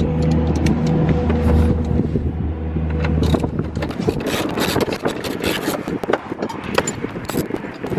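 An engine idles steadily with a low hum, then stops about three and a half seconds in. It gives way to a rapid jumble of clicks, scrapes and knocks from work on the car battery in the trunk.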